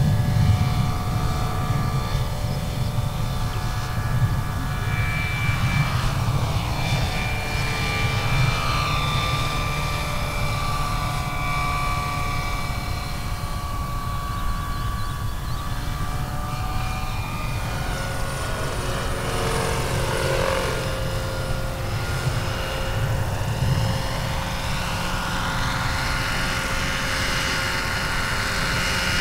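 Electric 1/8-scale Vario Airwolf (Bell 222) RC helicopter in flight: a steady low rotor thrum under high whining tones that slide up and down in pitch several times as it passes back and forth.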